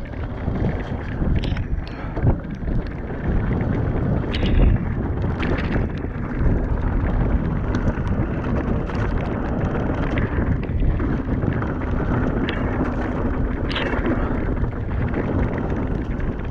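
Wind rushing over the microphone of a handlebar-mounted action camera as a mountain bike rides down a wet gravel forest trail, with the tyres rumbling over the loose surface. Now and then a sharp rattle or clack comes from the bike hitting stones and roots.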